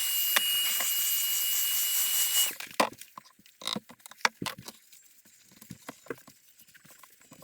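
A power tool running with a steady high hiss and a thin whine, cut off about two and a half seconds in, followed by scattered light clicks and knocks.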